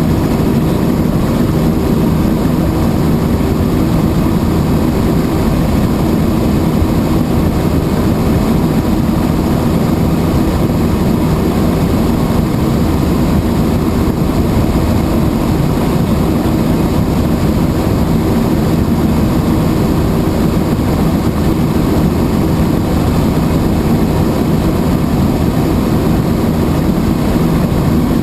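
Helicopter in flight: a loud, steady drone of rotor and engine, unchanging throughout.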